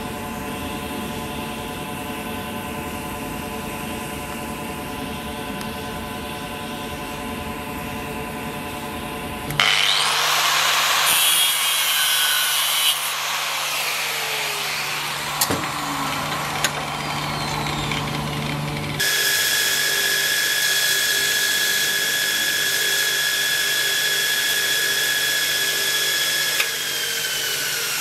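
Workshop power tools in turn: first a steady machine hum, then a handheld angle grinder running and grinding, with a few short knocks, then a belt grinder running with a steady high whine whose pitch sags near the end.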